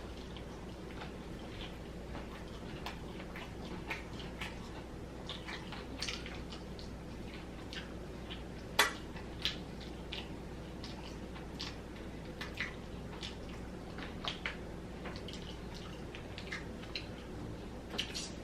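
A person eating fried chicken and fries close to the microphone: scattered small wet chewing clicks and mouth smacks, with one sharper click about nine seconds in, over a steady low hum.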